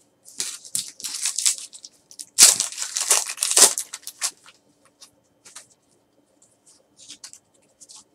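Foil wrapper of a trading card pack crinkling and then tearing open, loudest from about two and a half to four seconds in. Faint clicks of cards being flicked follow.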